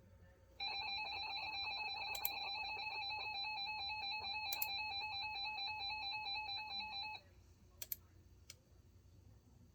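Emergency Alert System attention signal: a steady electronic alert tone with a slight warble starts about half a second in, holds for about six and a half seconds and cuts off abruptly, followed by a couple of faint clicks. The tone marks the start of an emergency alert, here a severe thunderstorm warning.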